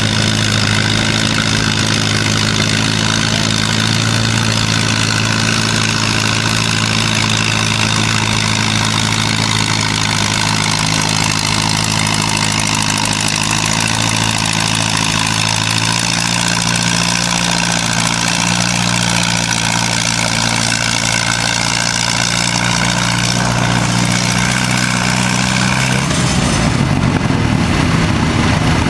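Antique tractor engine running steadily under load as it pulls a weight-transfer sled, its pitch drifting slowly upward. About 26 seconds in, the engine note changes abruptly.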